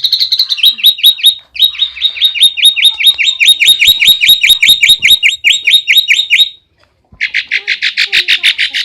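A tame starling calling in long runs of rapid, evenly repeated down-slurred notes, about five a second. It breaks off briefly about seven seconds in, then starts a faster series.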